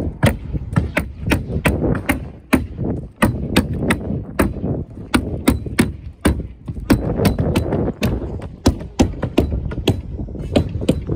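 Hammer tacker driving staples through roofing felt into plywood decking: sharp, irregular snaps at about three a second, over a low rumble of wind on the microphone.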